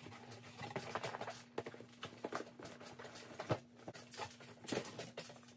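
Cardboard packaging and the plastic-wrapped machine being handled and lifted out of the box: irregular rustling, scraping and light knocks, over a faint steady hum.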